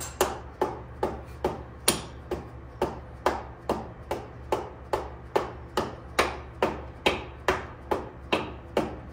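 A hammer tapping the motorcycle's rear axle through the wheel hub and spacers, a steady run of sharp strikes about two to three times a second.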